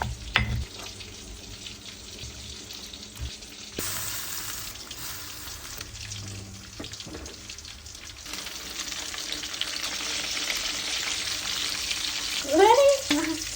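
Fish frying in hot oil: a steady sizzle that grows louder and brighter about four seconds in and again past the middle, with a few utensil clicks at the start. A short burst of voice comes near the end.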